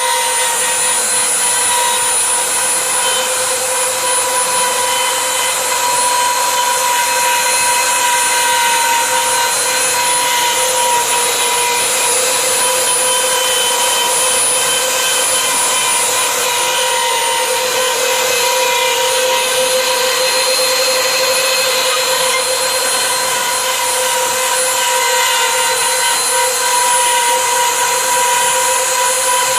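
Wood-carving CNC router running steadily, its high-speed spindle giving a loud, even whine over a hiss.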